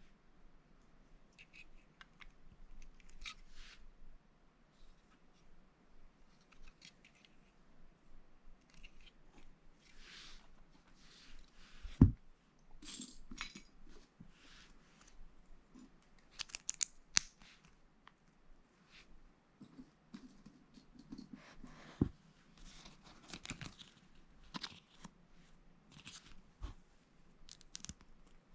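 Plastic Lego bricks being handled and pressed together: scattered small clicks and rustling of pieces, with a sharp knock about twelve seconds in and another, quieter, about ten seconds later.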